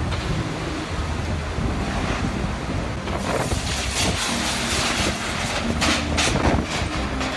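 Typhoon-force wind gusting and buffeting the microphone in a steady roar, with the gusts growing stronger about three seconds in.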